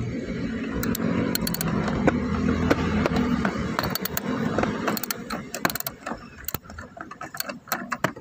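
Ratchet wrench clicking in short runs as it turns the handbrake cable adjusting nut, taking up the cable's tension. The clicks come thickest in the second half, over a low hum that fades out about three seconds in.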